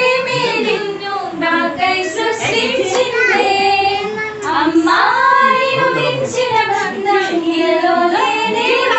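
A group of girls and young women singing a song together, with held, gliding notes.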